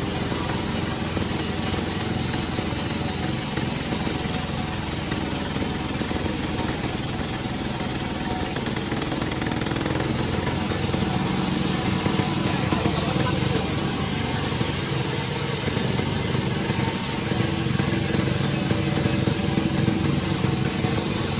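Sawmill machinery running steadily with a continuous engine-like drone, a little louder from about halfway through.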